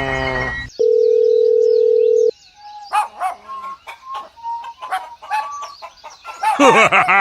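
A steady electronic beep held for about a second and a half, starting just under a second in, then scattered short bird-like chirps.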